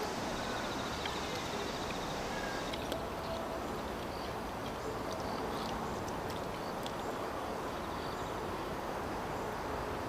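Steady outdoor background noise with a few faint, short chirps and scattered light clicks.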